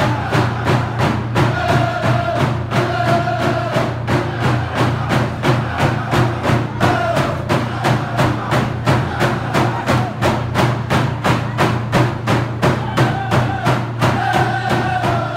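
Dene hand drums beaten in a fast, even beat of about three strokes a second, with voices singing a chant over it in phrases, strongest near the end.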